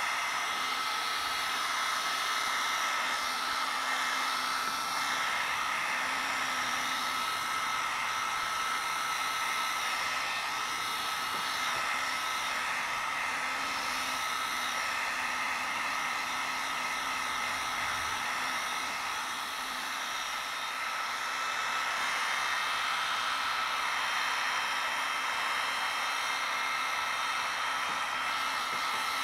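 Electric heat gun blowing steadily: an even rush of air with a constant whine above it, dipping slightly for a moment about two-thirds of the way through. It is heating the glass face of a colour CRT to soften the bonding of its clouded safety panel.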